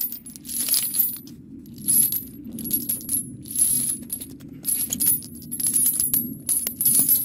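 Spent brass pistol casings clinking and jingling together in many quick, irregular metallic clicks, over a low steady rumble.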